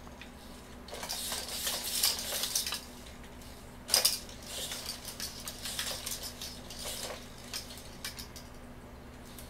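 Small servo-driven humanoid robot moving on a hard floor: bursts of servo whirring and plastic clatter as its legs and arms move, with a sharp click about four seconds in and a few lighter clicks near the end. A steady low hum runs underneath.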